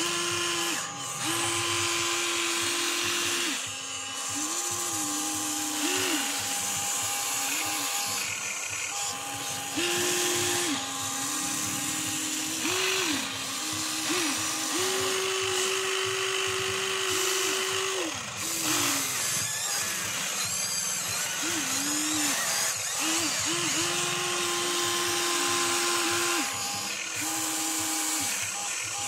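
Huina 1594 remote-control excavator's electric motors whining in short stretches that start and stop over and over, each run gliding up and down in pitch at its ends, as the boom, arm and bucket dig into dirt.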